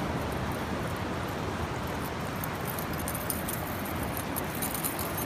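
Steady wash of ocean surf and wind noise on the microphone, with light, high jingling clicks scattered through the second half.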